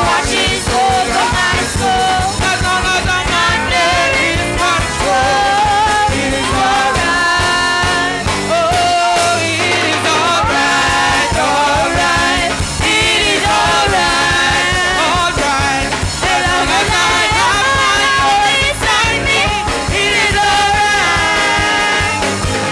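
Live gospel praise-and-worship music: several singers on microphones over a drum kit and a guitar, playing continuously.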